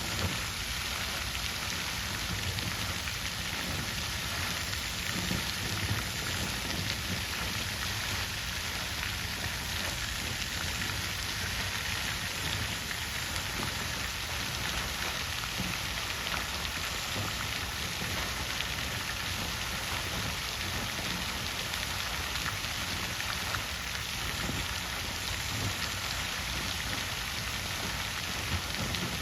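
Water fountain splashing, a steady even rush of falling water with a patter of drops.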